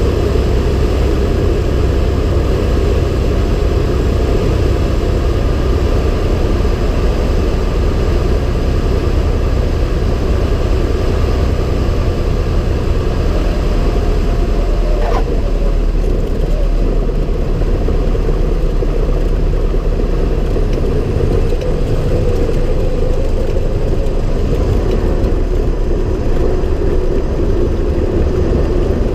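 Cessna 170B's six-cylinder Continental engine and propeller running steadily, with a brief click about halfway through.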